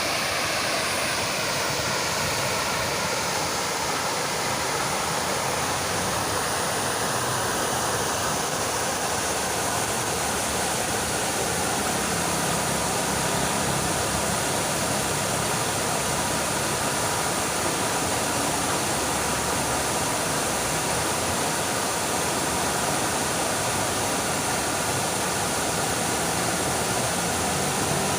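Fountain water splashing steadily in a continuous rushing hiss.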